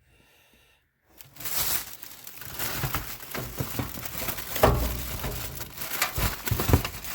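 Packing material crinkling and rustling as saw parts are pulled out and unwrapped, starting after about a second of quiet, with scattered knocks and a heavier thump a little past the middle.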